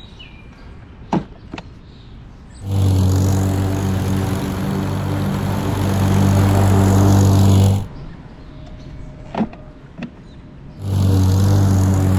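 Husqvarna HU700H walk-behind lawn mower's engine running steadily while cutting tall grass. It is broken twice by quieter stretches holding a few sharp clicks, the spring-loaded height-adjustment lever being moved between notches.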